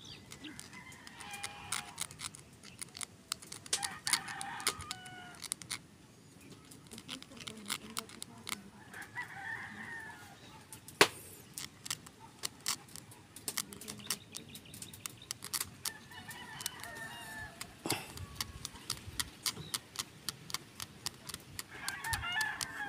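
Many small sharp clicks and scratches as a steel needle is worked into a raw eggshell, one click about eleven seconds in louder than the rest. Chickens cluck and crow in about five short spells in the background.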